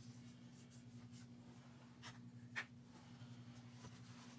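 Near silence: a steady low hum of room tone, with two faint light taps about two and a half seconds in.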